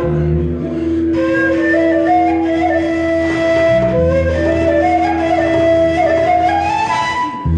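A ney, an end-blown flute, plays a melody that steps up and down, over a long held keyboard note and low bass notes.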